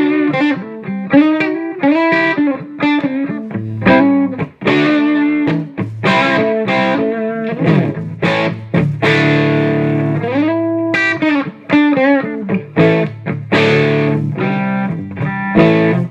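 Electric guitar with a Seymour Duncan Alnico II Pro humbucker played through a 1939–40 Gibson EH-185 tube amplifier's mic channel turned up to 2: a run of single notes and chords, stopping abruptly at the end.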